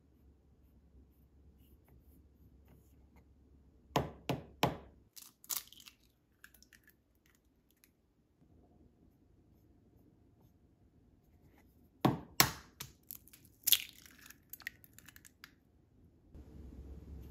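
Food-preparation sounds: two short runs of sharp knocks and crackles, about eight seconds apart, each a few hard taps followed by lighter crackling.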